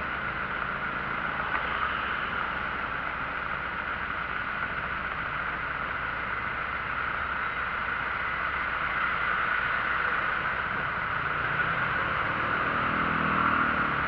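Vehicle engines idling in stopped traffic, with a steady hiss over them. About twelve seconds in, a nearby engine note rises and grows louder as it revs.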